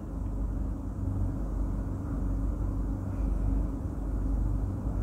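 A steady low hum of a motor or appliance, with light scraping of a steel spoon against a nonstick pan as thick chilli sauce is scraped out into a bowl.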